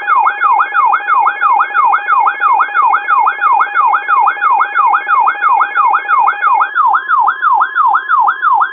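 Electronic emergency-alert attention tone: a sweeping tone that falls quickly in pitch, repeating about three to four times a second over steady beeping tones. About two-thirds of the way through, the lower steady tone drops out and the sweeps continue over a steady tone alone.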